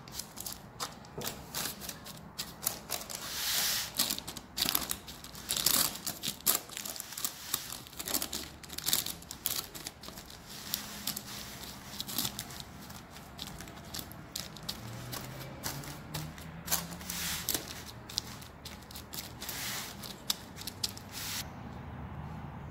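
Crushed biscuit crumbs pressed down by hand and with a metal spoon into a parchment-lined baking pan: irregular crunching, scraping and paper crinkling, which stop about a second before the end.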